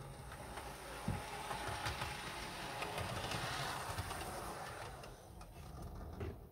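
An OO gauge Hornby Class 153 DMU model running around the track: its small electric motor whirs and its wheels rumble over the rails. The sound swells around the middle and eases off near the end.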